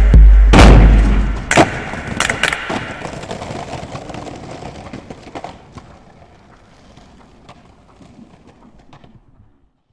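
Skateboard landing a trick with a sharp clack, then smaller clicks as it rolls on paving stones. Music with a heavy bass is playing at the start and cuts off about a second and a half in, and the board's sound fades out over the following seconds.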